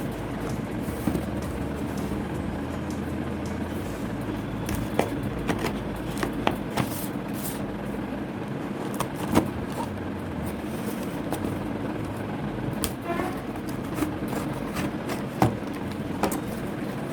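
A cardboard phone box being handled and opened: scattered clicks, taps and rustles as its seals are cut and the packaging is pulled apart, over a steady low hum.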